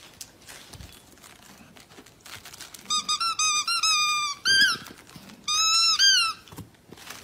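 Plush squeaky dog toy squeaking repeatedly as a dog bites down on it: runs of quick high squeaks begin about three seconds in and come in three bursts.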